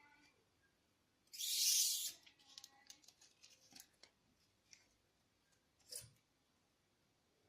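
Handling noises: a short, loud rustle about a second and a half in, followed by scattered light clicks and taps and another brief rustle about six seconds in.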